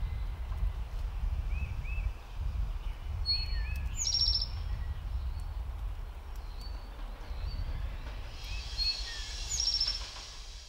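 Wild songbirds calling: pairs of short chirps and, twice, a quick high trill, over a steady low background rumble.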